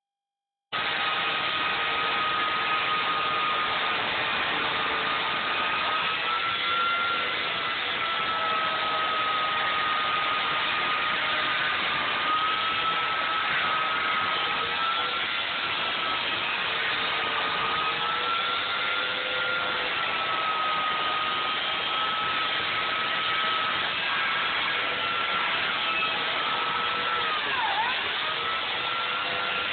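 Chainsaw running continuously as it cuts into EPS foam: a steady high motor whine over a hissing rasp, starting abruptly about a second in. The pitch wavers slightly, and near the end it dips sharply for a moment, then recovers.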